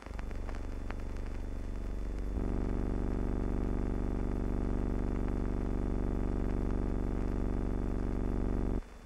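Steady droning hum with many overtones, like a motor or electrical buzz. It changes suddenly in pitch and loudness about two seconds in, then cuts off abruptly near the end.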